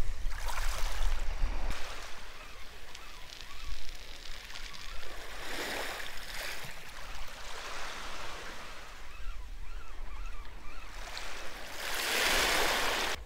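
Small, gentle waves washing in over shingle at the water's edge, swelling and fading twice, loudest near the end. There is a low rumble in the first couple of seconds.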